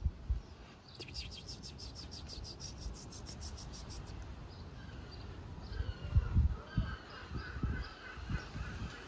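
Birds calling in the background: a fast chattering run of high ticks starting about a second in and lasting some three seconds, then a string of short calls. Several loud low thumps come in the second half.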